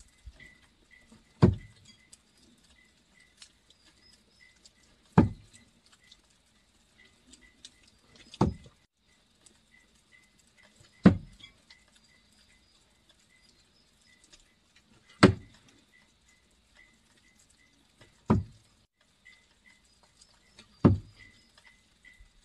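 Throwing knives hitting a wet end-grain wooden target, seven sharp thunks a few seconds apart. A faint chirp repeats about twice a second underneath.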